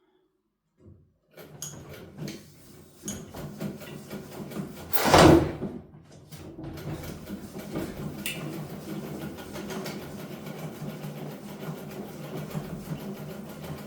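Domestic sewing machine running and stitching with an even, rapid rhythm, starting about a second in, with one loud thump about five seconds in.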